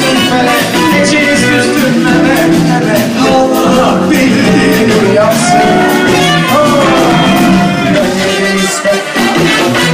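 Live band playing an upbeat pop song, loud and steady with a steady beat on drums and cymbals, guitar and keyboards, and a trumpet, with a man singing into a microphone.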